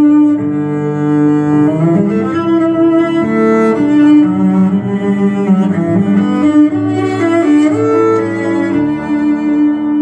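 Cello music played from a vinyl record over hi-fi loudspeakers: a slow melody of sustained bowed notes moving around a steadily held low note.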